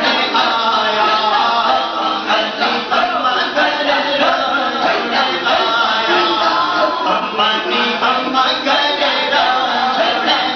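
A group of men's voices chanting together, many voices overlapping continuously.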